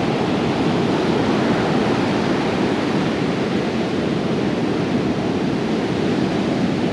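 Ocean surf on a beach, a steady, even wash of breaking waves with no single crash standing out.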